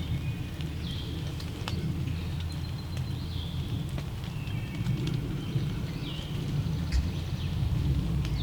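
Small birds chirping in the woods, short high notes every second or so, over a steady low rumble and a few light clicks.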